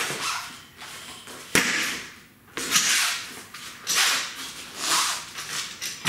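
Manual bead breaker being levered down on a cold Honda Gold Wing rear tire: a sharp knock about a second and a half in, then a series of rasping swells roughly once a second as the tire's bead is forced off the rim.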